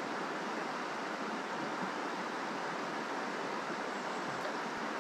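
Steady rush of a mountain trout stream's flowing water, an even hiss with no breaks.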